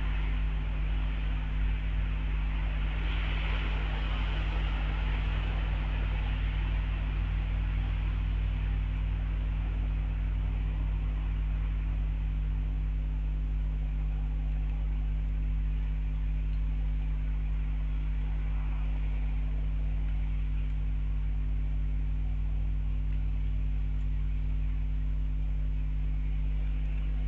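Steady electrical mains hum, unbroken throughout, over a faint hiss that swells briefly a few seconds in.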